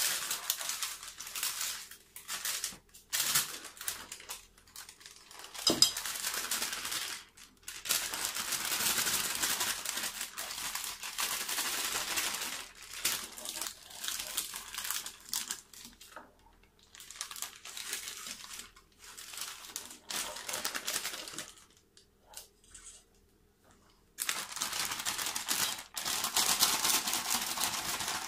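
Plastic piping bag crinkling and rustling as it is handled and filled with a spatula, in irregular stretches with short pauses.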